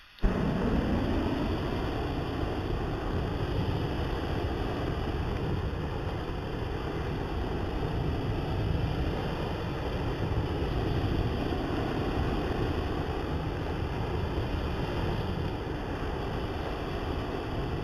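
Flamethrower igniting with a brief pop, then its flame burning with a steady, loud rushing noise.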